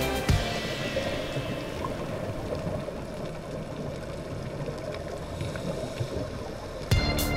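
Muffled underwater sound picked up by a diving camera: a steady low rumble of water noise with a few faint scattered ticks. Background music cuts out just after the start and returns near the end.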